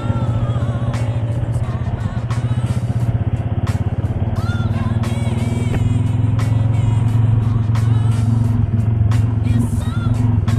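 Honda GL100 single-cylinder four-stroke motorcycle engine running steadily under way, with background music over it.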